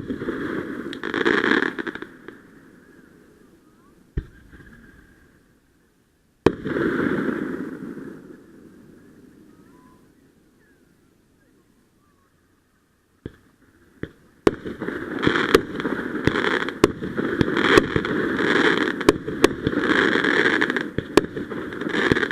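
Fireworks going off. A sharp bang is followed by a crackling hiss that fades, another bang comes about six seconds in with a longer fading hiss, and from about two-thirds of the way through there is a dense run of rapid crackling pops.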